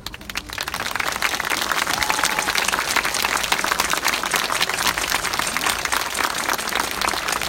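Audience applause that breaks out and swells within the first second into steady, dense clapping.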